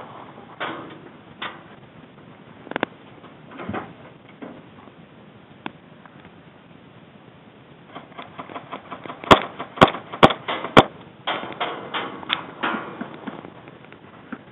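Four sharp airsoft gun shots about half a second apart, a little over halfway through. Around them is irregular rustling of gear and crunching of gravel underfoot.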